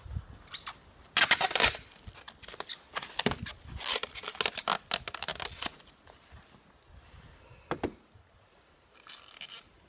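Plastic sheeting crinkling and rustling in irregular bursts as it is handled and stretched over a hive, with a single sharp click about two-thirds of the way through.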